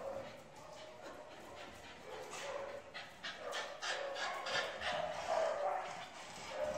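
Dogs barking, with a quick run of short barks starting a couple of seconds in and louder ones near the end.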